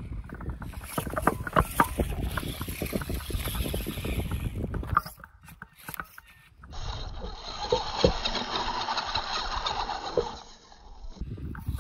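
A radio-controlled rock crawler driving over granite and loose gravel: crunching and clicking of tyres and chassis on rock, with wind rumbling on the microphone. About six seconds in the sound changes to a thinner hiss with a few sharp knocks, then the crunching carries on.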